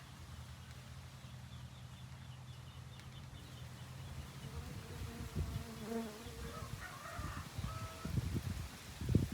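Honeybees buzzing, a steady low hum. From about halfway, irregular low thumps and brief higher tones come in over the buzz.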